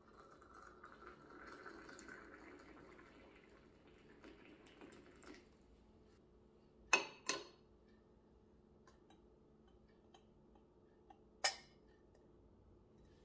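Hot water poured from a kettle into a glass teapot, a soft splashing stream that stops about five seconds in. Then two sharp clinks of glass close together, and one more clink near the end.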